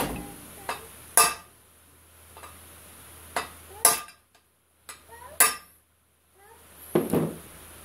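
Hammer striking steel parts on a metal stand: about eight sharp, irregularly spaced metallic clanks with a brief ring, the last a little duller and lower.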